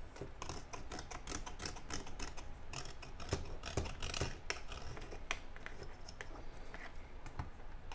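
Solder scraper scraping old epoxy out of the joint socket of a plastic bass clarinet body: a run of small, irregular scratches and clicks as the blade works around the bore.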